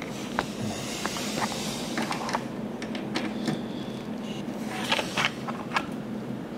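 Scattered clicks, knocks and rustling from handling a USB cable and plugging its connector into a desktop PC, over the steady hum of the running computer.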